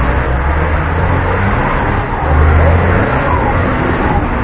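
Off-road 4x4 engines running, swelling louder for a moment a little past two seconds in.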